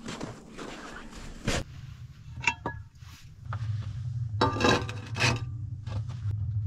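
A metal frying pan clinks and clatters as it is set down and shifted on a sheet-metal stove top, with a steady low hum underneath in the second half.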